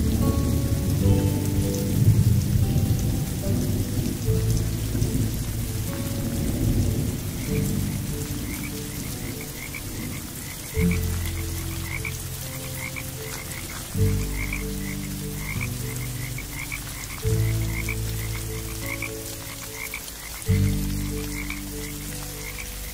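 Rain hiss with frogs croaking in quick strings of short calls, over soft music whose low sustained chords are the loudest part and strike anew about every three seconds. The croaking starts about a third of the way in.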